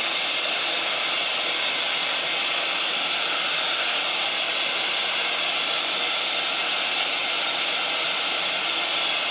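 Steady, loud radio static hiss from an SBox ghost box scanner sweeping through radio frequencies, with no stations coming through.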